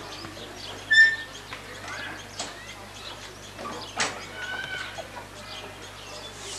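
Birds calling in short chirps and sweeps, with one loud, clear whistled note about a second in, over a steady low hum.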